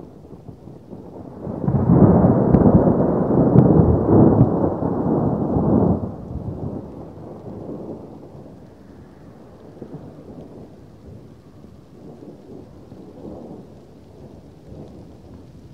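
A roll of thunder, loud for about four seconds from just under two seconds in, then dying away into the steady hiss of rain.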